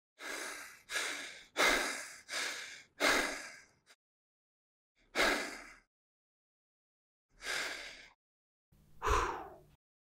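A person breathing in ragged gasps: five quick, heavy breaths, then three slower ones spaced further apart, the last a long sigh that falls in pitch.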